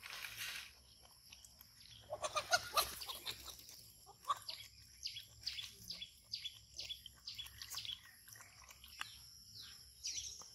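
A dog and puppies lapping liquid from a foam tray, with a short pitched animal cry about two seconds in and a rapid run of short, high, downward-falling chirps from about four seconds on.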